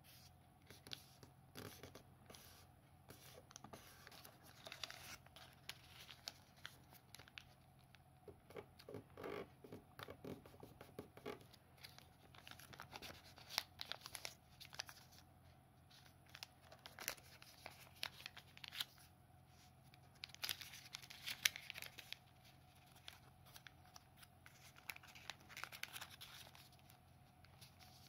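Origami paper being folded and creased by hand: quiet rustling and crinkling, with sharp little crackles as fingers press the folds flat.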